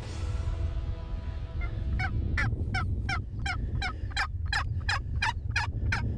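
A run of turkey yelps, about three sharp notes a second, starting about two seconds in and going on to the end. It sits over a steady low wind rumble, and the tail of background music fades out in the first second or so.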